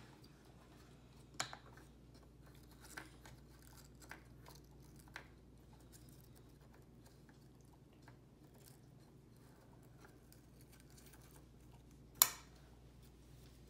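Quiet room with scattered faint clicks and taps of something being handled, and one sharp click about twelve seconds in.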